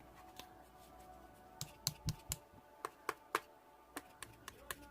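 A run of sharp, irregular clicks and taps, about a dozen over some three seconds, starting about a second and a half in, over a faint steady hum.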